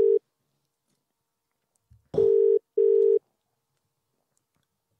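Telephone ringback tone of an outgoing call ringing unanswered, in the double-ring pattern: two short steady tones close together, repeating every few seconds. The tail of one pair sounds at the very start and a full pair about two seconds in.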